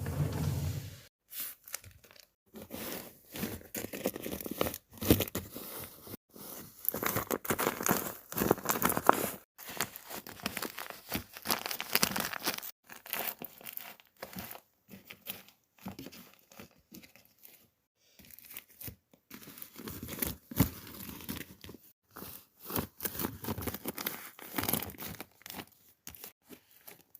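Paper and tape being handled close up: irregular crinkling, crackling and tearing noises that come and go in short bursts.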